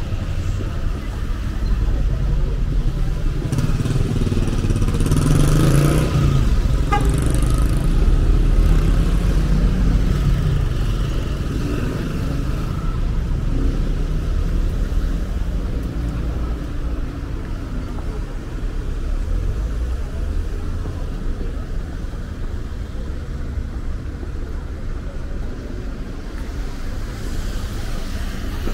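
City street traffic: a steady engine rumble, with a vehicle passing close and loud from about four to ten seconds in.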